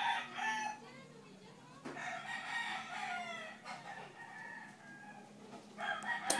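A rooster crowing more than once, one long crow falling in pitch at the end. A sharp click from the TV set's front-panel knob comes near the end.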